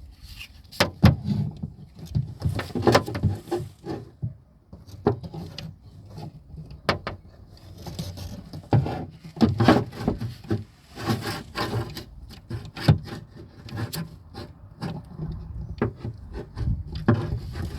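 Irregular clicks, knocks and scraping as a car door lock mechanism is handled and worked into place inside the door, with rubbing of the parts against the door's inner panel between the knocks.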